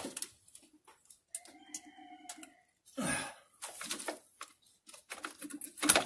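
Half-inch ratchet and 22 mm deep socket clicking and knocking as they loosen a transmission reverse light switch. A short squeak comes about a second and a half in, and the clicks get busier near the end.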